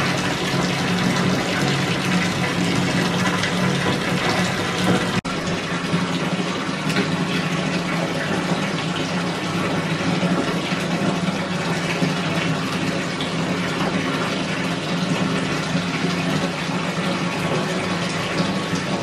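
Bath tap running: a steady stream of water pouring into a partly filled bathtub of foamy water, with a momentary dropout about five seconds in.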